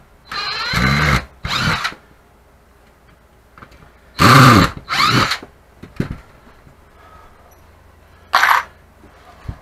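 Power drill driving screws into a wooden board frame in short bursts, its motor whine rising and falling with each trigger pull. Two bursts come near the start, two louder ones about four seconds in, and a brief one near the end.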